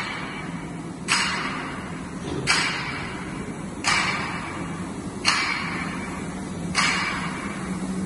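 Sectional garage-door panel production line running: a steady low machine hum, with a sudden sharp hiss about every second and a half, five in all, each fading over about a second.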